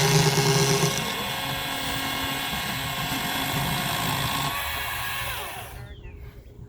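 Kobalt battery-powered electric chainsaw running with a steady motor whine as it cuts into a couch, loudest in the first second; the trigger is let go about five and a half seconds in and the motor spins down with a falling pitch.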